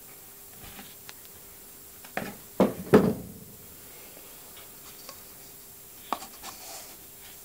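Cardboard Dixan washing-powder drum being opened by hand: a cluster of knocks and scrapes as the lid comes off about two to three seconds in, then a shorter scrape about six seconds in as a hand reaches inside towards the plastic scoop. A faint steady hum runs underneath.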